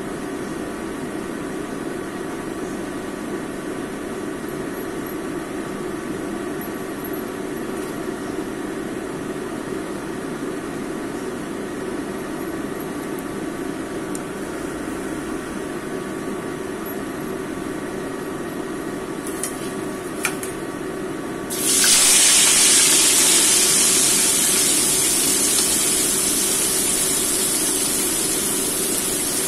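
A steady low hum while the oil heats in a nonstick wok. After a couple of light clicks about three-quarters of the way through, seasoned fish is laid into the hot oil and it breaks into a loud frying sizzle that slowly eases off.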